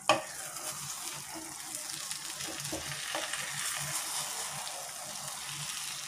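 A spatula stirs vermicelli biryani in a nonstick kadai, scraping and turning the soft, nearly dry mix over a steady sizzle as it cooks on low heat. There is a single sharp knock right at the start.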